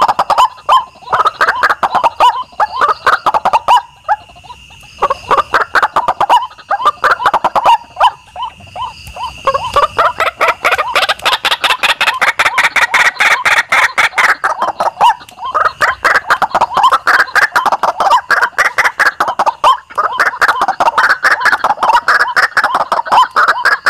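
White-breasted waterhen calls played as a lure: long runs of rapid, harsh repeated notes, loud and nearly continuous, with short breaks about 4 and 8 seconds in. A steady thin high-pitched tone runs underneath.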